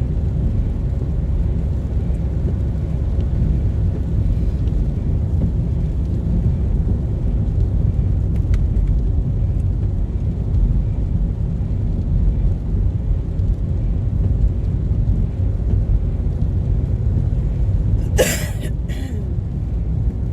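Steady low rumble of road and engine noise inside a moving car's cabin. Near the end comes a brief burst of noise.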